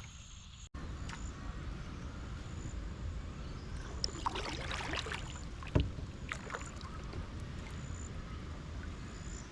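Water sloshing and small clattering sounds around a sit-in kayak over a steady low rumble, with one sharp knock on the kayak about six seconds in.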